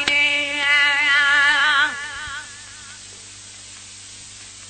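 A singer holding one long, wavering note of a Sindhi devotional song, ending about two seconds in. After that only a faint steady hiss and hum remains.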